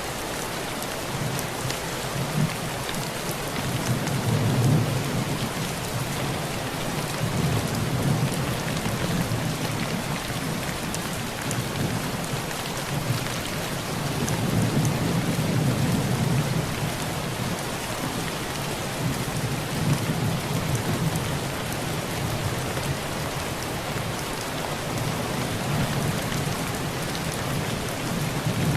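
Heavy rain on a tin roof, a steady hiss, with distant thunder rolling in low rumbles that swell and fade several times.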